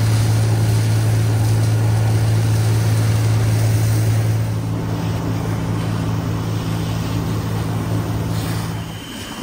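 Fire apparatus engine running steadily as a loud, even low drone, with the hiss of a hose stream spraying water onto a smoldering mulch pile. The drone drops away near the end.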